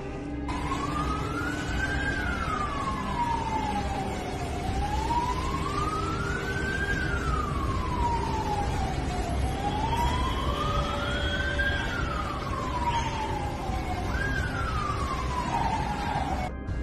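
A siren wailing in a slow rise and fall, repeating about every five seconds, over a steady wash of background noise.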